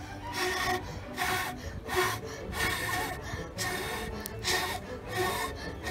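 Repeated short breathy blasts as a boy blows through a long blowpipe into a wood cooking fire to fan the embers, about one puff a second.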